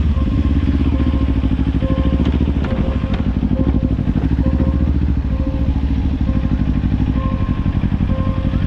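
Kawasaki Ninja 400 parallel-twin engine running as the bike rides over a railway level crossing, with a few sharp knocks about two to three seconds in as it crosses the rails. Behind it a level-crossing warning signal sounds a repeated fixed-pitch ding, warning that the barrier is about to come down.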